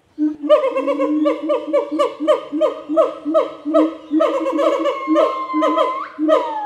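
Gibbons calling together: a rapid run of short hooting notes, about four a second, each dropping in pitch, over a lower steady hoot. Toward the end, long drawn notes with sharp upward swoops.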